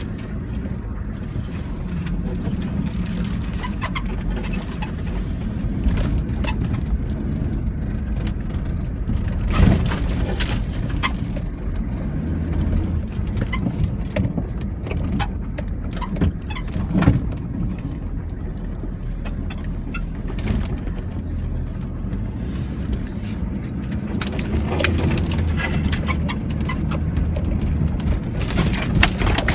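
Vehicle engine running steadily with a low rumble, with scattered knocks and rattles, the two loudest about ten seconds in and again a little past halfway.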